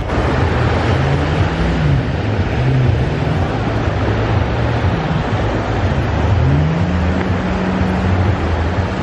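Steady rushing noise of surf and wind on the microphone, under a deep pitched sound that holds on low notes and swoops up and down.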